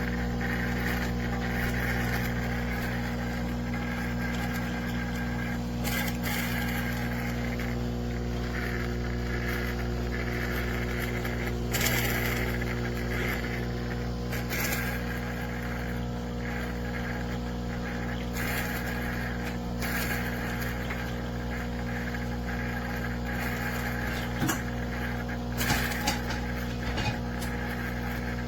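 A steady low machine hum, with a few short clicks scattered through it.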